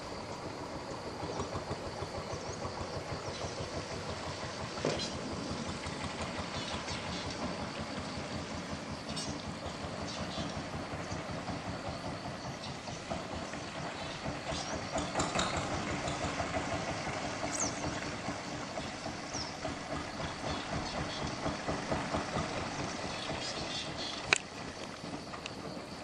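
Long-tail boat engine running with a fast, even pulsing, a little louder around the middle. A sharp click near the end.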